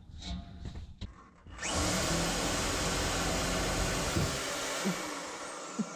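Cordless reciprocating saw cutting through a rubber exhaust hanger: the motor starts about a second and a half in with a rising whine, runs steadily for about three seconds, then is released and whines down.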